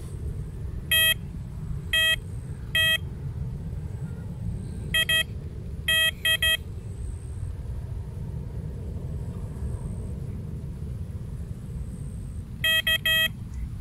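Electronic carp bite alarm giving short single beeps in irregular groups: three about a second apart, a few more around five to six seconds in, and a quick run of three near the end. The beeps come as line is pulled through the alarm and the swinger bobbin slowly rises, the sign of a fish taking the bait. Under them runs a steady low rumble.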